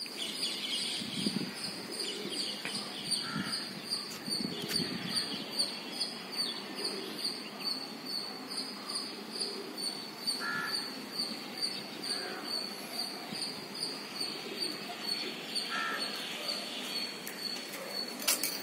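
A large flock of birds calling overhead, many overlapping chirps and calls, with one high call repeating about twice a second throughout. A single sharp click near the end.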